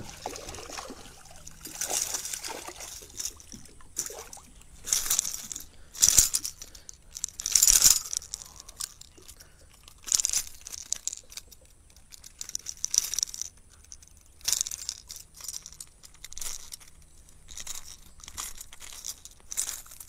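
A series of short, irregular splashes and rustles: a hooked bass thrashing at the surface beside a kayak and then being lifted and handled. The loudest bursts come about six and eight seconds in.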